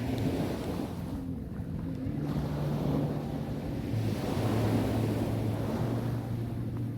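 Sea waves breaking and washing up a sandy beach, the surf hiss swelling and falling back about every two to three seconds, with a low steady hum underneath.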